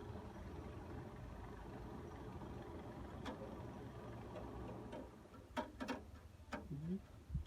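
Truck engine running steadily, stopping about five seconds in, followed by a few sharp metallic clicks and knocks.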